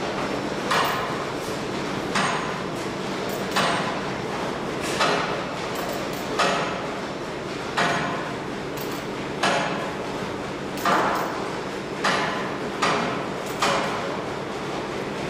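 Hammer blows on metal at the tube ends of a steam locomotive boiler being re-tubed, struck at a steady pace of about one every second and a half, each with a short ring.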